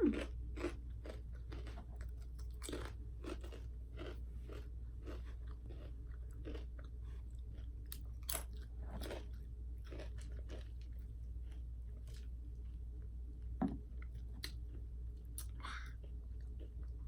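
A person chewing and crunching food close to the microphone, in many short, irregular crunches, over a steady low hum.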